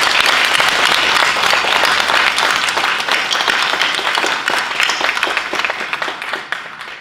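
Audience applause: many people clapping in a dense patter that fades away near the end.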